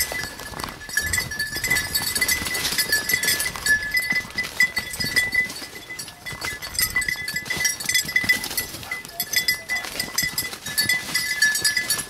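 A small dog bell jingling continuously as a pointing dog works through standing corn, over the rustle of dry cornstalks and leaves being pushed aside.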